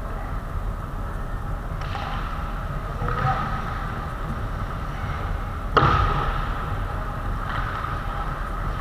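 Ice hockey rink play: steady rink background with a few brief scraping swells, and one sharp impact about six seconds in that rings on briefly in the rink.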